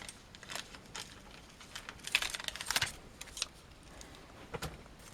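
Hands handling SATA data cables and plastic parts inside a PC case: scattered small clicks and ticks, with a busier stretch of rustling about two seconds in.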